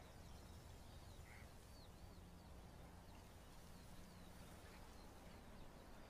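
Near silence: faint outdoor ambience with a low steady hum and a few faint bird chirps, about two seconds in and again near four seconds.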